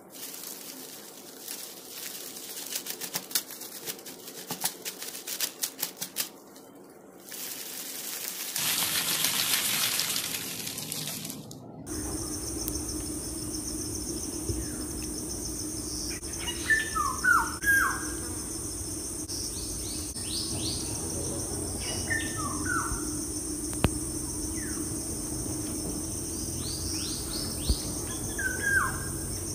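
Rustling and clicking for the first several seconds, then a loud hissing rush lasting about three seconds. From about twelve seconds in comes a steady high insect trill, with birds chirping in three short clusters of quick falling notes.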